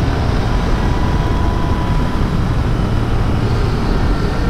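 Royal Enfield Continental GT 650's parallel-twin engine running at a steady cruise, under a steady rush of wind noise on the microphone.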